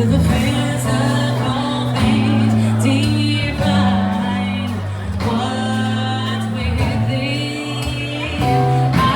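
Background music: a song with singing over a steady beat and sustained bass.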